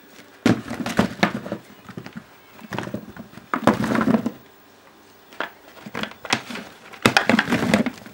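Fresh birch and aspen bolete mushrooms tumbling out of a small bucket into an empty plastic basin, in about six irregular bursts of soft knocks and clatter as the bucket is tipped and shaken.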